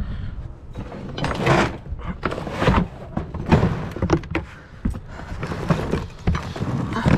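Heavy pieces of scrap steel being tossed and dropped onto a load, a series of separate thunks and clanks about one a second.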